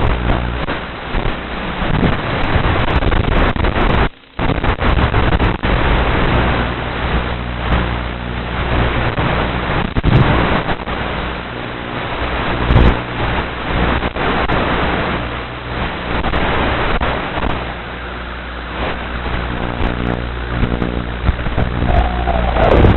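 Electric motors and propellers of an FPV aircraft with a steady hum and wind rushing over its onboard camera microphone while it chases a 64 mm EDF model jet. The sound drops out briefly about four seconds in, and near the end a whine sweeps down in pitch as the jet passes close.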